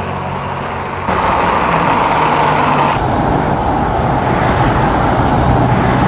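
Peugeot 206 CC convertible driving along a street: engine running under steady road and wind noise. It comes in suddenly about a second in, as a few held music notes end.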